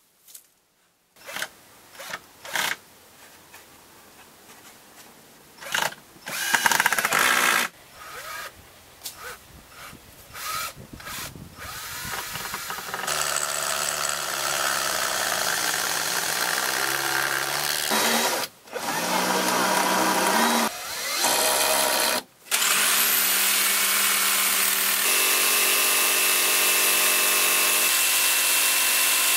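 A run of sharp knocks and clatters, then a cordless drill running in starts and stops as it drives screws into wood. Near the end a Bosch jigsaw whines up and runs steadily.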